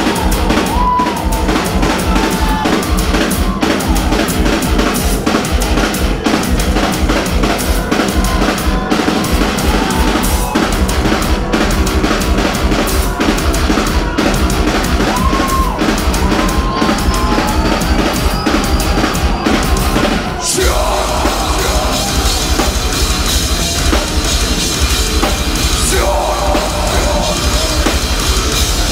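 Live industrial metal band playing loudly through the venue PA, with a fast kick-drum beat under bass and guitars. About twenty seconds in the band stops for a beat and comes back fuller.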